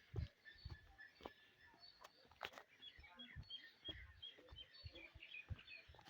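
Faint bird chirping in the background, with scattered sharp clicks and soft low knocks.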